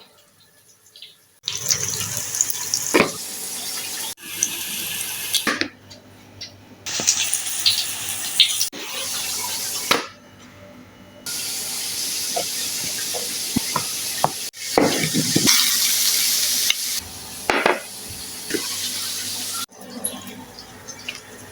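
Kitchen tap running into a sink in several separate stretches that start and stop abruptly, with a few sharp knocks and clatters of things being handled.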